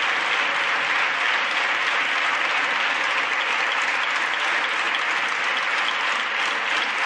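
Many parliamentary deputies applauding, a steady, dense clapping that neither builds nor fades.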